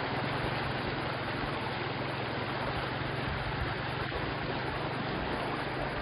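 Fast, shallow river rapids running over rocks: a steady rush of white water with a constant low hum underneath.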